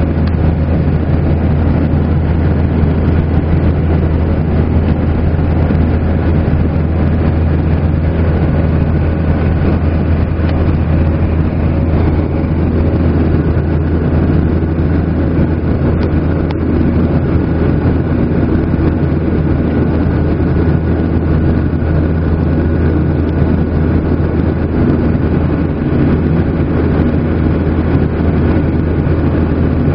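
Boeing 737-800 cabin noise in flight: the steady drone of its CFM56-7B turbofan engines and rushing airflow, with a deep hum and a few faint steady tones above it, unchanging throughout.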